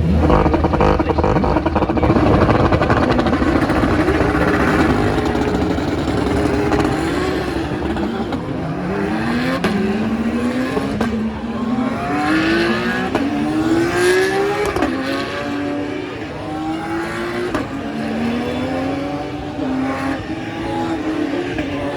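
Racing car engines at speed: a loud mass of engines at first, then an engine accelerating up through the gears, its pitch climbing and dropping back at each of several upshifts.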